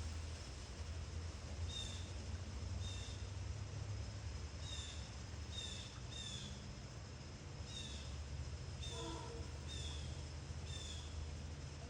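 A songbird repeating a short, high, down-slurred chirp about once a second, over a steady low rumble of wind. About nine seconds in, a single lower bird call sounds.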